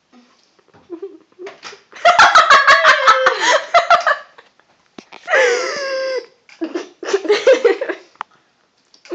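Loud laughter in three bursts: a long run of rapid pulsed laughs, a high squealing laugh that falls in pitch, then another pulsed fit of laughing.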